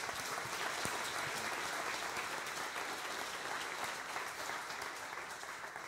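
Audience applauding, a steady clatter of many hands clapping that eases off slightly near the end.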